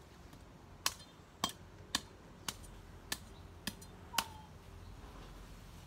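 Seven sharp chops of a large knife blade striking something, about two a second, then stopping.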